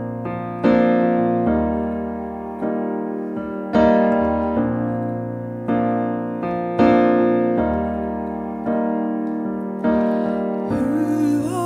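Roland RD-700SX stage piano playing a song intro: chords struck about every second or so, each ringing and fading before the next, with low bass notes underneath. A voice begins singing in the last second.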